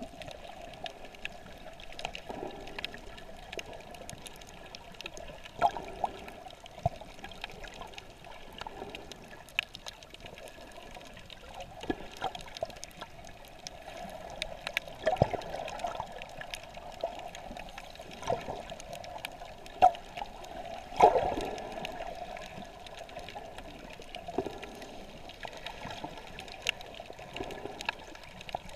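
Shallow sea water heard underwater: a steady muffled hiss and sloshing, broken by many scattered sharp clicks, the loudest a few seconds past the middle.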